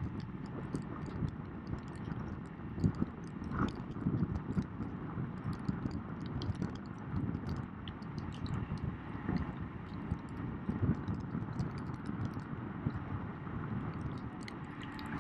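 Wind and water noise on a low, spray-wet camera riding on a boat: an uneven low rumble with irregular swells and many small splashing ticks.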